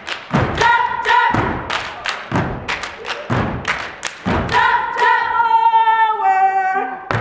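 A step team stomping boots on a wooden stage in a steady unison beat, with women's voices singing a short line in unison about half a second in. From about four and a half seconds a longer sung phrase gives way to a falling held note while the stomping drops out; the stomps come back right at the end.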